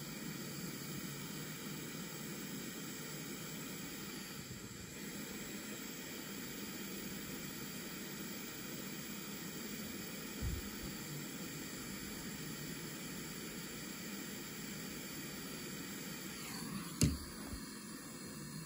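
Steady low hiss, with one dull thump about ten seconds in and a sharper knock near the end, like parts being handled and set down.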